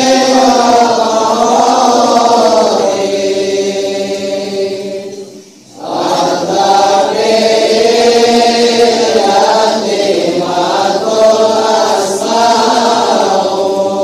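A man's solo voice chants Arabic maulid rawi in a slow, melismatic melody, drawing out long notes with a wavering pitch. It breaks for a breath about five and a half seconds in.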